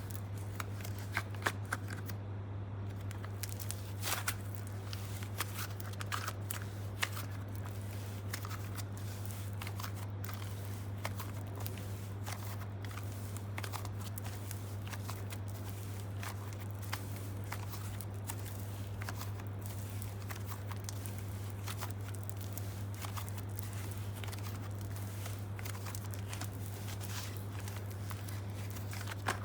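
Slime being squished and handled, giving irregular small sticky clicks and crackles over a steady low hum.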